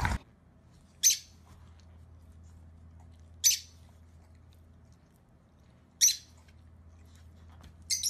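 Rosy-faced lovebird giving short, shrill, high-pitched calls, four of them about two and a half seconds apart, the last one doubled.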